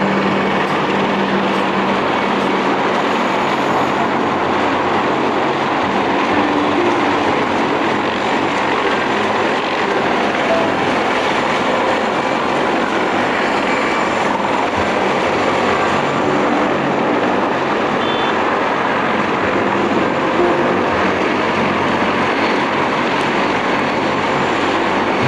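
CH-53E Super Stallion heavy-lift helicopter on the ground with its three turbine engines and seven-blade main rotor running as it taxis: a loud, steady noise.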